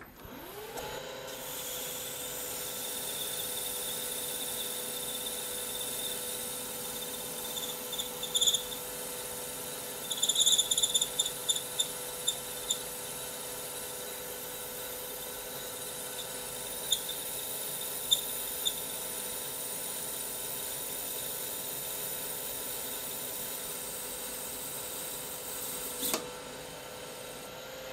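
A lathe spindle spins up with a rising whine and runs steadily while a CBN insert turns a tungsten carbide end-mill shank. The insert squeaks in short spurts, a cluster about a third of the way in and a few more later: the cut is at the limit of the hobby machine and the insert is going dull. The spindle stops near the end.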